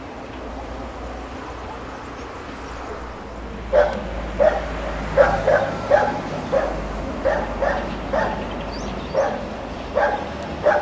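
A dog barking a dozen or so times at an irregular pace, starting about four seconds in, over the low steady rumble of an approaching train.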